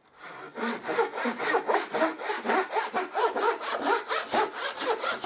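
Japanese hand saw cutting across plywood in rapid, even strokes, sawing a kerf down to a marked depth line.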